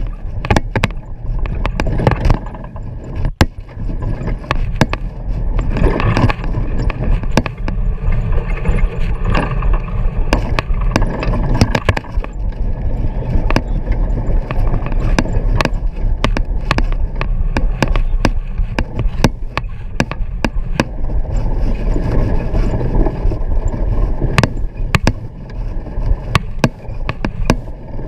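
Vehicle driving over a rough dirt road, heard from inside the cabin: a steady low rumble of engine and tyres, broken by frequent irregular knocks and rattles as it goes over the bumps.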